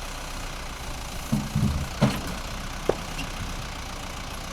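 A steady engine or machine hum, with a few low knocks a little over a second in and two sharp clicks near the middle.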